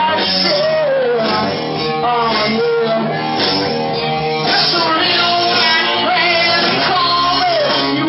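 Live rock band playing: electric bass, electric guitars and drum kit, with a man singing lead at a steady, loud level.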